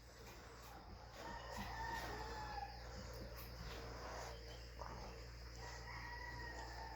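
Roosters crowing faintly in the distance: two long drawn-out crows, the first about a second and a half in and the second near the end.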